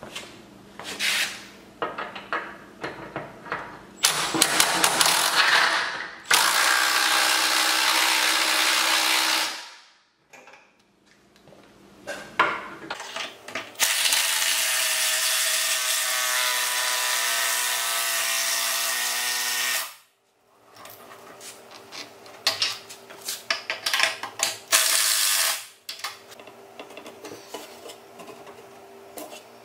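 Cordless drill running under load in two long steady runs, the first about three seconds and the second about six, boring or driving into wooden boards through a steel upright. Short clatter and knocks of tools and boards being handled come before, between and after the runs.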